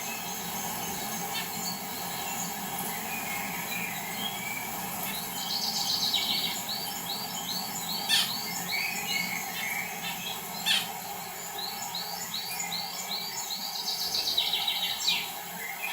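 Small birds chirping and calling, with quick runs of repeated chirps and two sharp, louder calls, over a steady background hum.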